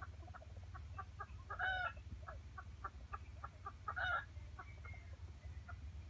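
Jungle fowl hen clucking softly in a steady run of short clucks, about three a second, with two louder calls, one near two seconds in and one about four seconds in.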